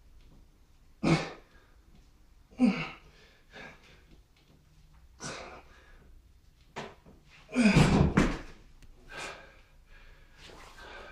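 A man's short, forceful exhales and grunts, one every second or two, as he pushes through decline push-ups to failure. About eight seconds in comes the loudest exhale together with a heavy thud as the set ends and his feet come down off the chair.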